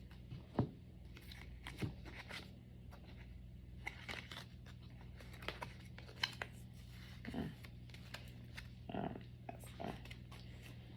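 Tarot cards being handled and shuffled: scattered soft rustles, slides and taps at irregular intervals, over a steady low hum.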